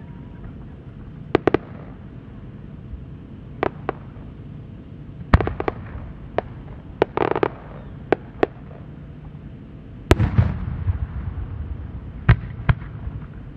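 Aerial firework shells bursting one after another in a string of sharp reports, each trailing a short low rumble. A short burst of crackling comes about seven seconds in, and the loudest report about ten seconds in.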